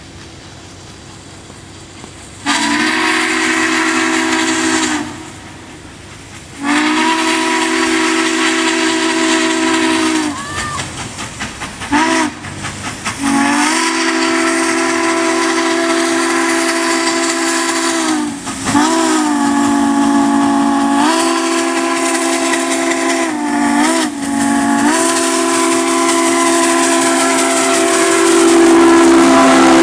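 Southern Pacific 4449's steam whistle, a GS-4 4-8-4 steam locomotive, sounding a chord of several tones in a series of long and short blasts, starting about two seconds in with long, long, short, long: the grade-crossing signal. The pitch sags briefly as each blast is shut off, and it grows louder toward the end as the locomotive nears.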